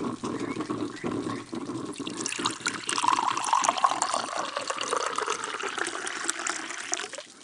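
Coffee being poured into a cup: a steady splashing pour that stops shortly before the end.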